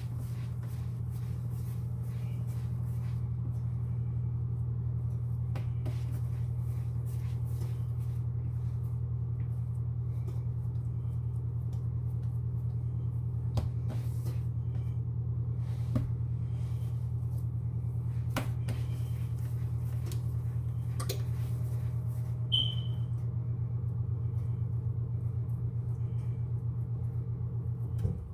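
Steady low hum, with a few light taps and knocks over it; the hum cuts off at the end.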